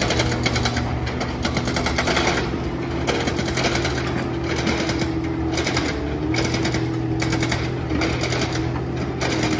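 Komatsu hydraulic excavator's diesel engine running steadily, with rapid clattering and knocking over it; the engine note dips briefly about six seconds in.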